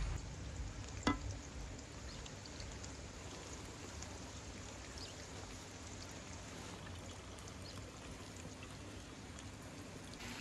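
Steady rushing of a stream. About a second in there is a single metallic clink, a spoon knocking against the metal serving platter.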